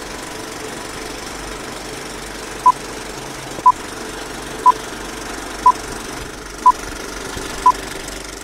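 Old-film countdown-leader effect: a steady film-projector whir and rattle with a short beep once a second, six beeps starting almost three seconds in.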